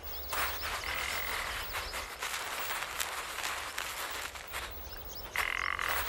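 Alpine marmot digging into crusted snow: many light, irregular crunching clicks. Two short, buzzing, croak-like calls sound over them, one about a second in and a louder one near the end.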